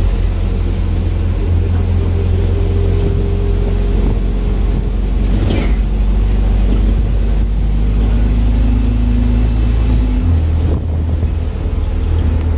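Ikarus 405 midibus's diesel engine and drivetrain running under way, heard from inside the passenger cabin as a steady low rumble with droning tones. About ten seconds in, the engine note drops.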